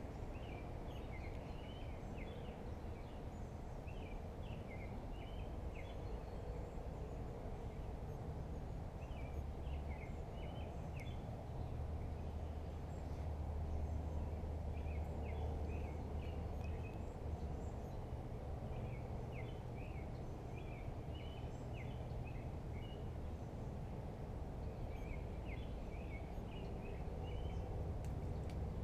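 Birds chirping in short clusters of quick high notes every few seconds, over a steady low rumble of background noise.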